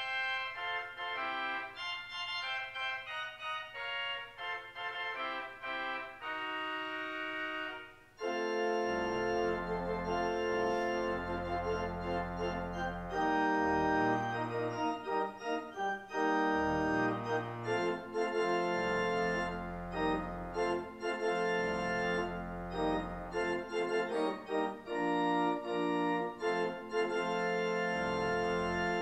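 Church organ playing the service prelude: lighter chords in the upper register at first, a brief break about eight seconds in, then fuller chords with deep bass notes underneath.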